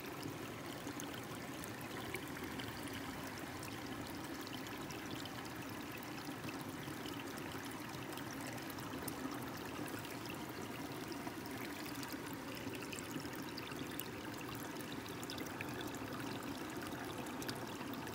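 Shallow creek water running steadily, swirling around and through a plastic gold pan held down in the current.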